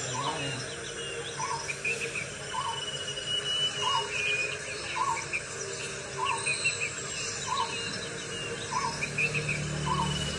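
Wild birds and insects calling together. One short low call repeats about once a second, groups of higher chirps come and go, and a thin, steady insect buzz runs beneath them.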